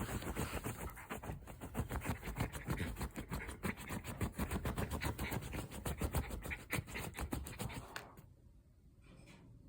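Shiba Inu puppy digging at a futon with its front paws: a rapid run of scratching strokes on the fabric, stopping about eight seconds in.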